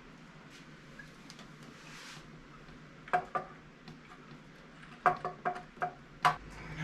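Metal parts clinking together as throttle bodies are handled and set onto an engine's intake: seven sharp, ringing clinks, two about three seconds in and a quicker run of five near the end.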